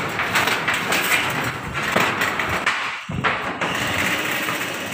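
Corrugated iron roofing sheets rattling and knocking as they are lifted by hand and walked on: a steady run of irregular clatter and knocks, with a short lull about three seconds in.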